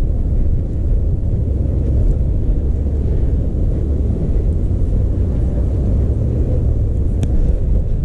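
Blizzard wind blowing across the microphone: a loud, steady low rumble.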